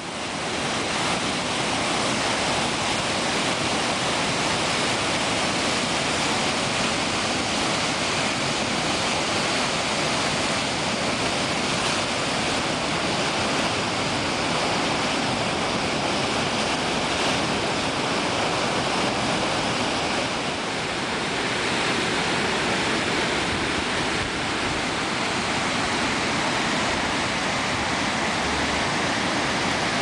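Júcar river white water rushing steadily over a weir and down a concrete channel, loud and unbroken, with a slight dip in level about twenty seconds in.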